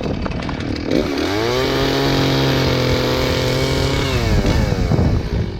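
Stihl two-stroke chainsaw revving up to full throttle about a second in and holding high revs while cutting off a storm-broken branch, then dropping back toward idle near the end.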